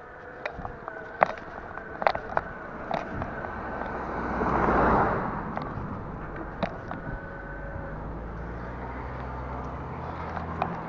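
Bicycle being ridden, heard from a camera on the handlebars: steady rolling and wind noise with frequent sharp rattles and knocks from the bike over bumps. A rushing swell of noise rises and falls about halfway through, and a low hum builds in the second half.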